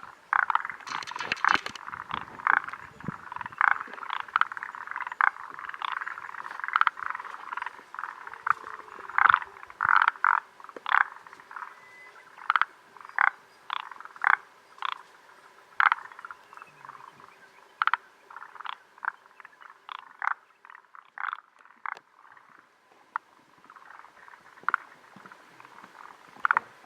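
A chorus of forest green tree frogs and montane brown frogs calling: many short, sharp croaks that come irregularly and overlap, over a steady background of more distant calling.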